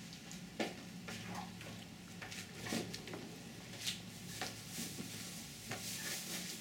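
Soft, scattered clicks and smacks of a toddler eating grapes with her fingers from a small bowl on a plastic high-chair tray, over a steady low hum.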